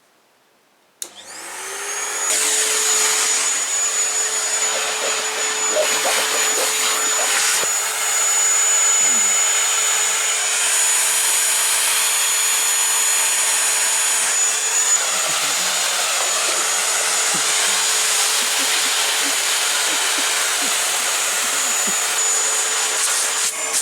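Vacuum cleaner switched on about a second in, its motor spinning up to a steady high whine within a second or two, then running steadily.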